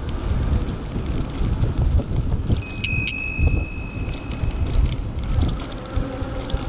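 Bicycle bell rung twice in quick succession about three seconds in, the two dings ringing on for a second or so, over a steady rumble of wind on the microphone.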